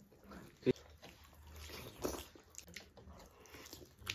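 Close-up eating sounds: biting into and chewing a sauced chicken drumstick, wet mouth clicks and smacks scattered through, the loudest a sharp one less than a second in.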